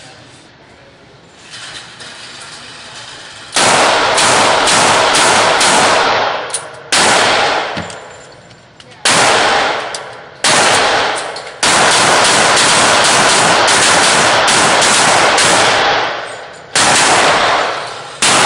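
Springfield XDm semi-automatic pistol fired in quick strings of shots, about three a second, each run trailing off in echo in an indoor range booth. Very loud.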